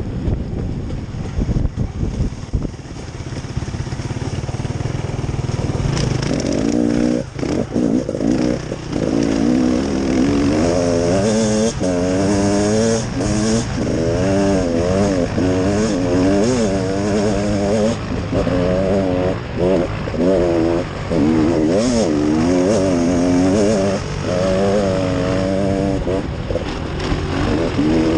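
A small vehicle engine running on the trail, steady at first, then from about six seconds in revving up and down over and over, its pitch rising and falling with the throttle.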